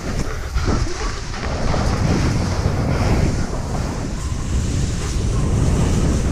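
Wind buffeting a skier's camera microphone during a fast descent: a steady, rumbling rush of noise.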